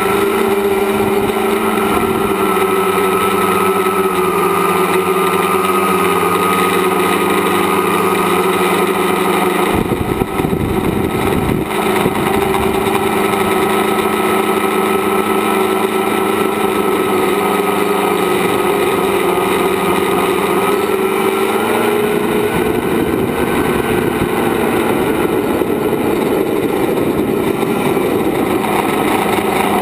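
A tricopter's electric motors and propellers whine steadily in flight, heard through the onboard camera. The pitch drifts slightly with throttle, and extra low rumbling joins about ten seconds in.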